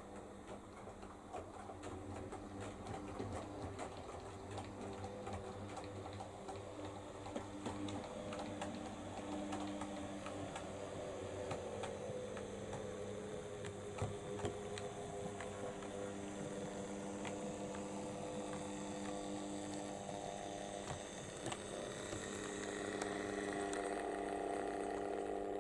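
OO-gauge model tank locomotive (Oxford Rail GER N7) running along the track, its small electric motor humming steadily with scattered clicks, growing louder as the train comes close near the end.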